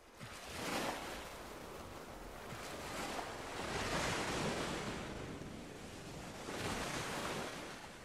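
Rushing noise like surf, swelling and fading three times as waves wash in.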